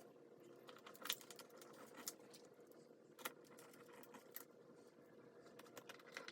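Faint room tone with a low steady hum and a few scattered sharp clicks and light taps, the loudest about a second in and about three seconds in.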